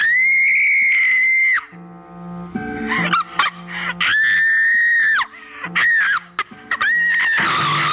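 A woman screaming in repeated high-pitched shrieks, two of them long and held, the others short, over steady background music.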